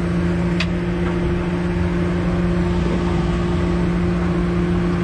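Party boat's engine running with a steady drone and a constant low hum, with a short click about half a second in.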